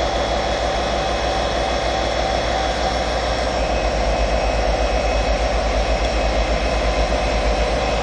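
Class 57 diesel locomotive's EMD V12 two-stroke engine running: a steady rumble with a high whine over it, throbbing a little harder from about halfway through.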